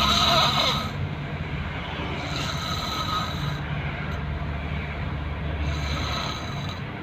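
A person snoring in deep sleep: two long snoring breaths about three seconds apart, over a steady low rumble.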